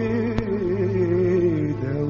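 Arabic song music: an ornamented melody line that wavers up and down in pitch over a held low note, with one sharp click about half a second in.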